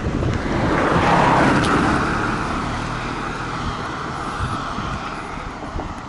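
A car driving past on the road, its tyre and engine noise swelling to its loudest about a second in and then slowly fading as it moves away.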